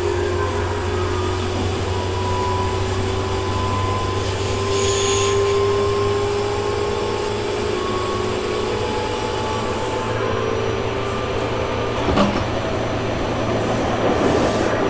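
Interior running sound of a Tobu 6050-series electric train near the cab: a steady low hum with a whine from the TM-63 traction motors, and the air conditioning running. The whine fades about ten seconds in, and a single knock sounds a couple of seconds later.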